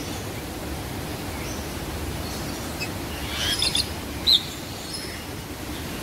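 Birds chirping: a brief cluster of high calls about three and a half seconds in, then one short, loud chirp just after, over a steady background rush.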